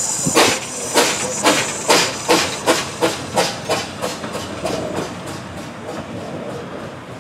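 Replica Baldwin 2-4-2 steam tank locomotive pulling away, its exhaust beating out sharp chuffs over a hiss of steam. The chuffs quicken from about two to three a second as it gathers speed, then fade as it draws away.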